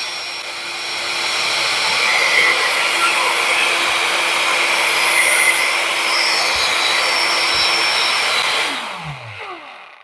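Cordless Parkside handheld fan-type tool running flat out: a loud, steady rushing of air with a hum, reading about 97 dB on a sound level meter. About nine seconds in it is switched off and winds down, its pitch falling.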